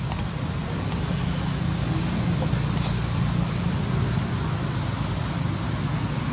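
Steady low rumble of road traffic or a vehicle engine running, a little louder in the middle.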